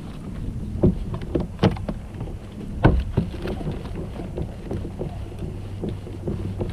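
Scattered knocks and clatter of gear being handled aboard a plastic fishing kayak, a few sharp ones standing out, over a low steady hum.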